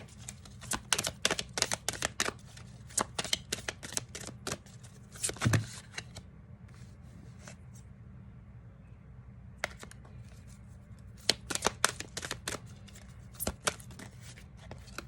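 A deck of reading cards being shuffled by hand: quick runs of card snaps for about six seconds, a pause of about three seconds, then more shuffling.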